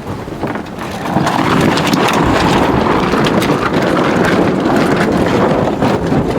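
A sailboat's sails flogging and rattling in the wind as the boat tacks, a loud flutter that builds about a second in and keeps on.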